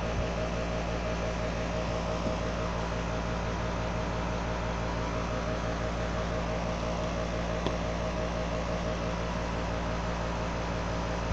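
Steady hum over a hiss, with one faint click about two thirds of the way through.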